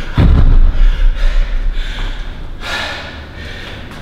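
A man panting hard, out of breath, with loud gusty exhales. About a quarter second in there is a low thud and some knocking as dumbbells are set down on the floor.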